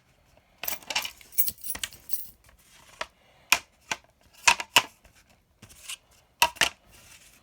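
Ceiling fan blades and their packaging being handled: a series of sharp clicks and clacks in irregular clusters.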